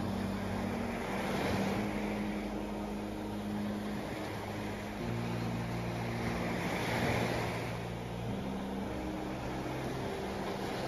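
Small waves breaking and washing up a sandy beach, swelling about a second in and again about seven seconds in. Under the surf run low held tones that shift pitch every second or two.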